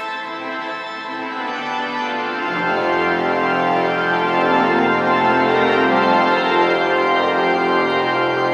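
Hook & Hastings/Steiner-Reck pipe organ playing held chords in an improvisation. About two and a half seconds in, deep bass notes come in and it grows louder.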